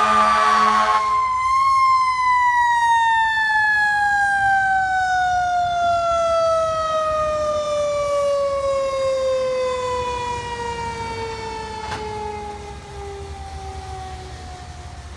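Ladder fire truck's mechanical siren winding down in one long, slowly falling wail that fades as the truck drives away. A loud horn blast cuts off about a second in.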